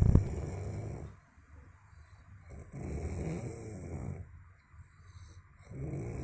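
A sleeping person snoring: a loud snore fades out in the first second, then two softer snoring breaths follow about three seconds apart.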